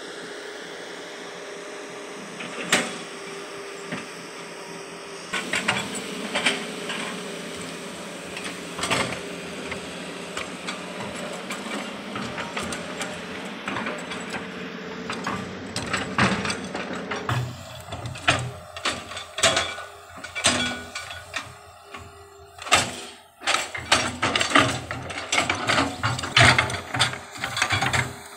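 Hydraulic excavator working, its engine running steadily with scattered metallic knocks. From about halfway through, rapid irregular clanks and rattles take over.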